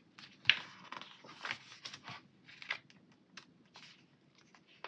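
Pages of a paper sticker book being turned and handled: short paper rustles and light taps, the loudest about half a second and a second and a half in.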